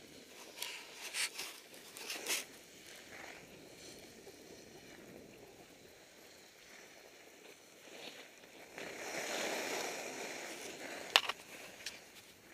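Skis sliding and scraping over packed snow, with a few knocks early on, a louder scraping stretch about three quarters of the way through, and one sharp click shortly before the end.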